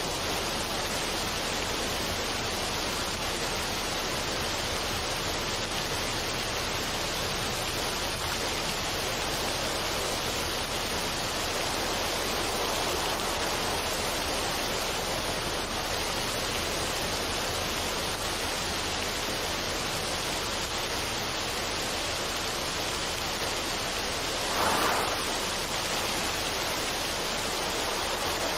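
Waterfall of a mountain stream pouring over rocks: a steady rush of falling water, with one brief louder splash near the end.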